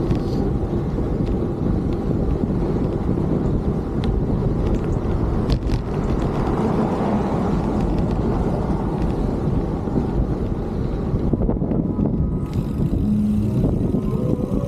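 Steady rushing wind noise buffeting the microphone, heavy and rumbling at the low end, with no change in loudness.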